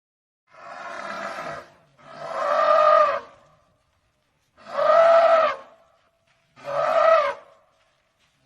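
African elephant calling four times, each call about a second long, a pitched trumpet-like blare that rises slightly and falls; the first call is quieter than the other three.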